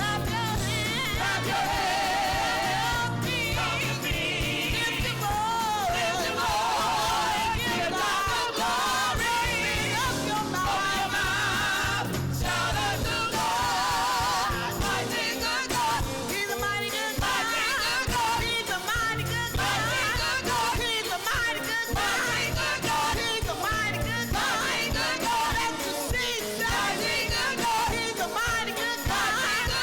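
Church worship music: singing with heavy vibrato over instrumental accompaniment, playing steadily.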